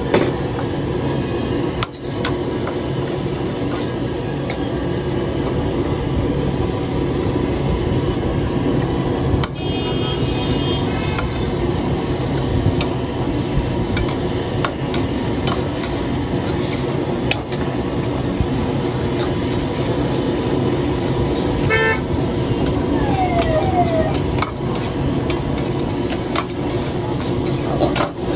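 Long-handled steel ladle stirring and scraping Maggi noodles in a steel kadhai over a gas burner, with repeated metal-on-metal clinks over a steady rushing noise. Vehicle horns toot briefly twice, about ten seconds in and again past the middle.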